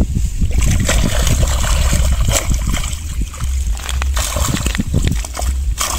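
Water splashing and sloshing in quick, irregular bursts, starting about half a second in.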